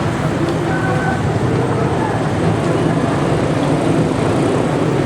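Busy street traffic: vehicle engines running steadily with road noise, and faint voices mixed in.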